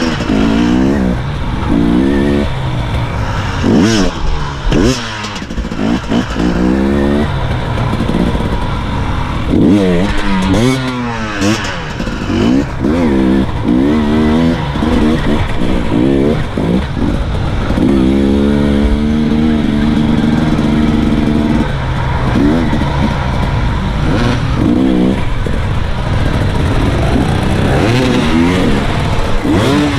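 Onboard sound of a hard-enduro motorcycle engine being revved up and let off again and again, its pitch climbing and dropping with each throttle opening. About two-thirds of the way through it holds steady at high revs for a few seconds.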